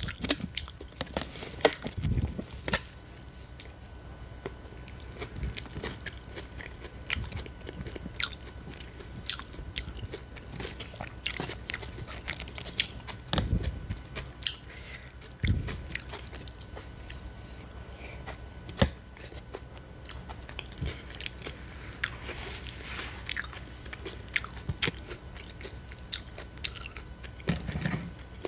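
Close-miked chewing and crunching of a vegetable salad with shredded cabbage, in irregular bites, with sharp clicks and scrapes of a spoon in a clear plastic takeaway box.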